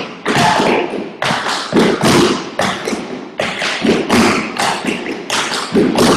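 Tap shoes striking wooden tap boards, several dancers at once, in a fast run of sharp taps and thuds.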